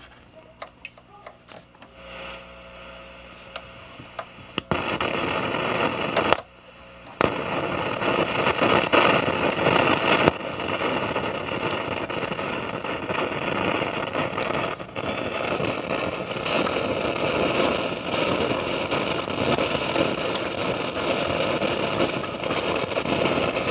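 Late-1960s General Electric hybrid tube-and-transistor AM/FM table radio's speaker putting out static as the set comes to life after switch-on. The hiss rises about two seconds in, jumps much louder near five seconds, drops out briefly around six to seven seconds, then carries on steadily.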